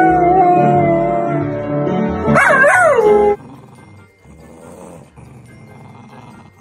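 A golden retriever howling: one long held note that wavers up and down near its end and stops suddenly about three seconds in. Much quieter sound follows.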